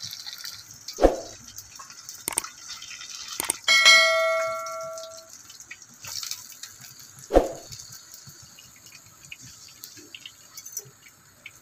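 Subscribe-button bell sound effect: a bright multi-tone ding about four seconds in that dies away over about a second and a half. Sharp clicks come about a second in and again past seven seconds, over a faint steady hiss.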